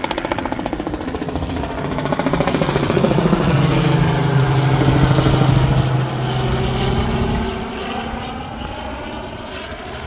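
Small light helicopter flying low overhead: a rapid rotor beat over a steady engine drone, growing louder to a peak about halfway through and easing off as it passes away.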